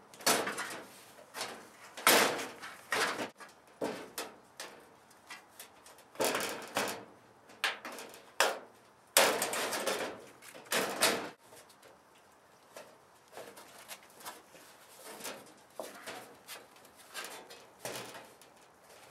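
Thin corrugated aluminum shed siding being scored with a utility knife, then bent and torn along the cut line. A series of rough scraping, crinkling bursts over the first eleven seconds or so give way to fainter clicks and rustles.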